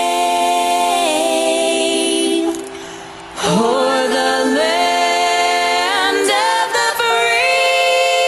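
Background music of voices singing long held notes in harmony, a cappella choir style, moving step by step between chords. It drops away about two and a half seconds in and comes back a second later.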